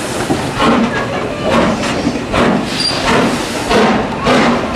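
BR Standard Class 4 4-6-0 steam locomotive no. 75029 pulling away, its exhaust beats coming about twice a second over a steady hiss of steam.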